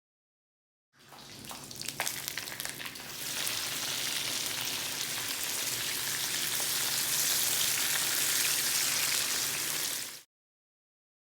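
Bacon and vegetables stir-frying in pork fat in a hot 14-inch Lodge cast iron wok: a steady sizzle. Scattered crackles and clicks come in the first couple of seconds, the sizzle swells louder about three seconds in, and it cuts off abruptly near the end.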